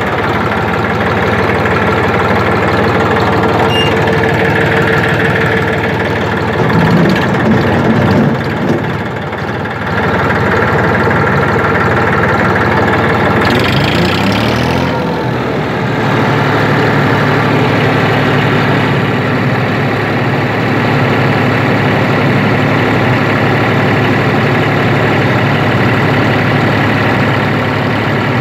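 Massey Ferguson 2605 tractor's diesel engine running just after starting. It gets louder about seven to nine seconds in, a brief hiss comes about fourteen seconds in, and then it settles into a steady run.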